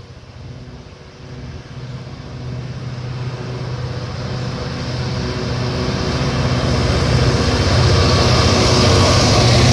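Diesel freight locomotive approaching and passing close by with a train of hopper wagons: a steady engine drone that grows gradually louder, with the rush of wheels on rail building toward the end.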